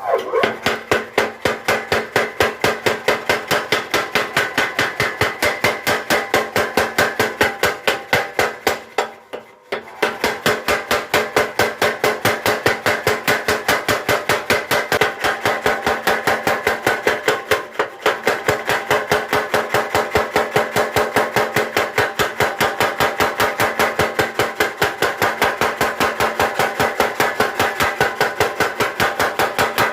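Mechanical power hammer for forging, pounding a steel bar in a rapid, even rhythm of about four to five blows a second, with a steady machine hum underneath. It pauses briefly about nine seconds in, then resumes.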